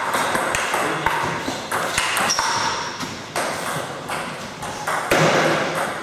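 Table tennis rally: the ball clicking sharply off rubber bats and the table in an irregular run of hits, with brief high squeaks.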